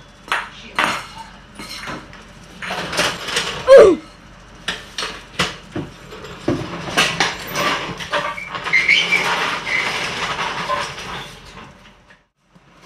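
Irregular metal clanks and rattles of a hydraulic floor jack being handled and wheeled over a concrete floor, with a brief squeak about four seconds in.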